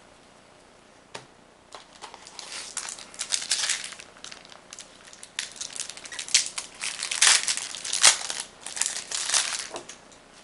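Foil wrapper of a Magic: The Gathering booster pack being crinkled and torn open by hand. It is a string of irregular crackling rustles starting about two seconds in, with one sharp snap about eight seconds in.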